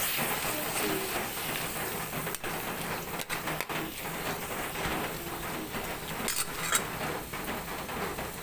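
Coconut milk and dried fish simmering in a hot pot: a steady crackling sizzle and bubbling, with a few sharp clicks about two and a half to three and a half seconds in.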